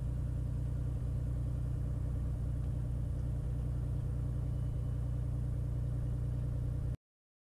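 Beechcraft Bonanza's single piston engine and propeller running steadily at low taxi power, a low droning hum. It cuts off suddenly near the end.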